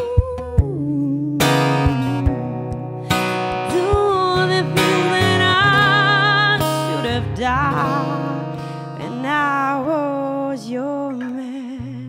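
Live acoustic guitar played under a woman's voice singing long, wavering held notes. The music dies down near the end.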